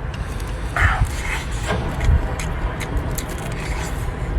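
Sounds of eating shellfish: scattered small clicks, scraping and a brief rustle about a second in, over a steady low rumble.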